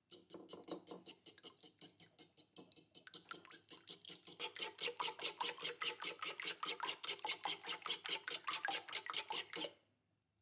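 Metal fork beating raw eggs in a ceramic bowl: quick, even strokes of about five or six a second, the tines clicking against the bowl. The beating grows louder about four and a half seconds in and stops near the end.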